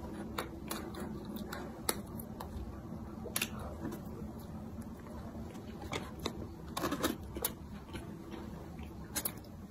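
Close-up eating sounds of a breadcrumb-coated pastry: bites and chewing, with scattered soft crunches and mouth clicks, a few clustered together about a third of the way in, past the middle and near the end.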